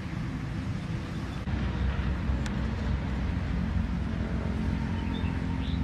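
Small engine running steadily, the motor pump driving a hose-fed crop sprayer misting seedlings. It gets a little louder about a second and a half in.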